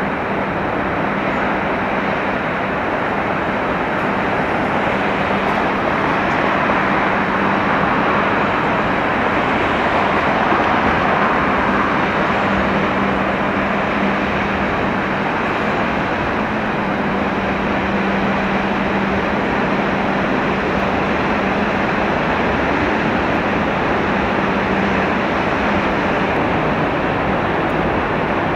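Steady rushing noise of a large car carrier passing close by, with a faint low steady hum from its machinery. The noise swells slightly about ten seconds in.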